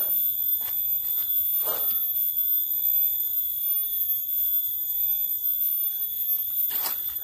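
Cicadas droning: a steady, unbroken high-pitched whine, with a few faint clicks.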